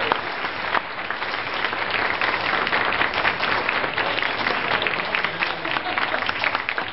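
Audience applauding in a meeting room, a steady patter of many hands clapping that tails off slightly near the end.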